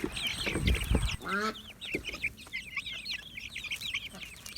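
Chickens calling: a hen's falling squawk about a second and a half in, over a constant chatter of quick high peeps from chicks. Wind rumbles on the microphone for a moment near the start.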